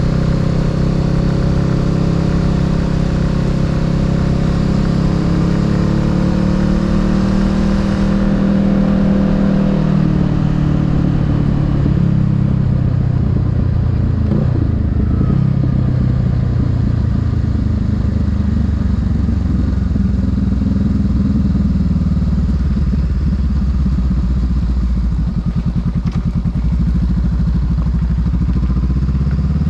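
Honda Rebel 500's parallel-twin engine running under way at low speed, its note shifting up and down over the first ten seconds or so, then settling to a steadier low drone.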